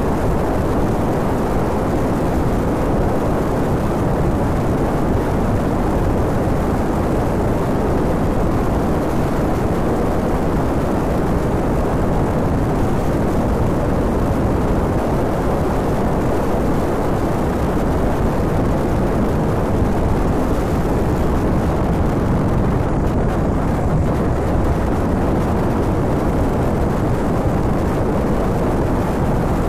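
Honda VTR250 V-twin motorcycle riding steadily at road speed, heard from a phone on its handlebars: a continuous wind rush and engine noise with no breaks or gear changes.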